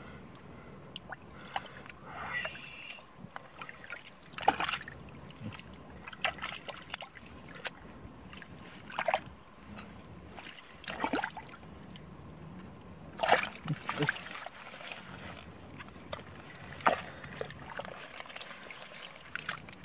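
Fish thrashing in shallow muddy water, with irregular splashes and sloshing and a few louder slaps.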